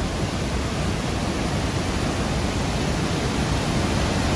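A large waterfall in heavy flood after wet-season rain, a huge volume of water crashing onto the rocks below with a steady, loud, deep rush.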